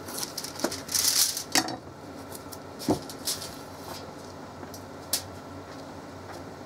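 Aluminum foil crinkling and rustling under gloved hands for about a second and a half, with a few short knocks, the loudest about three seconds in, then only faint clicks.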